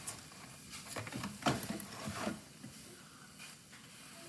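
A few light knocks and clatters as a milk container and a cup are handled, ready to pour, then a quieter stretch.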